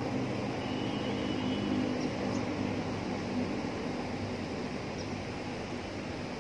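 Fast water rushing steadily through a concrete floodgate canal, with a faint low droning hum under it for the first three seconds or so.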